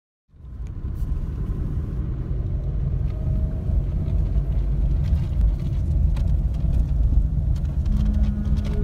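Car driving, heard from inside the moving car: a steady low rumble of road and wind noise that fades in at the start.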